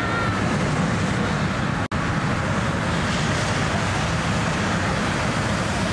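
Steady outdoor din of a balloon launch field, dominated by the low, even drone of gasoline-engine inflation fans blowing cold air into balloons lying on the ground. The sound cuts out for an instant just under two seconds in.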